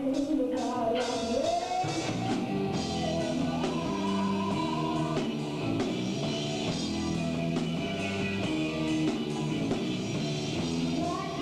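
A rock band playing live: drum kit, electric guitar and a singer.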